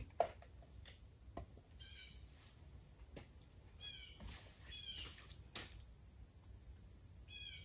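Faint bird chirps: four short calls, each a quick run of stepped notes, spread across the few seconds. A few light clicks or knocks sound between them over a quiet background.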